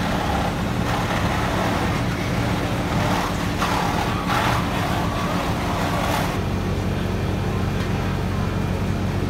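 Fire apparatus engines idling with a steady low rumble. A rushing noise rises over it for a few seconds in the middle, and about six seconds in the rumble settles into a steadier, deeper hum.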